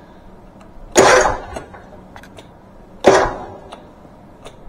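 Newly fitted electric starter motor on a Bobcat zero-turn mower engine cranking in two short bursts about two seconds apart as the key is turned: the starter now engages and spins, curing the no-start in which the old starter, its brush-holder plastic crumbling, left only the solenoid clicking.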